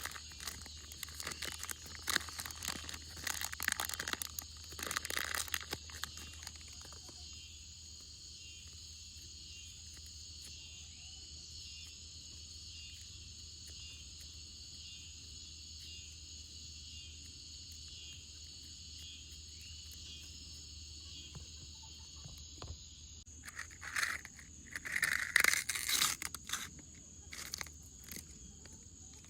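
Butter slime being squished and stretched by hand, making quick crackling clicks for the first several seconds and again for a few seconds near the end. A steady high-pitched chirring runs underneath.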